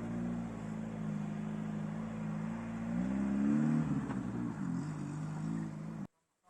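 Lada Niva Fora (VAZ-21218) four-cylinder petrol engine pulling off-road, revving up about three seconds in and easing back down a second later. The sound cuts off abruptly near the end.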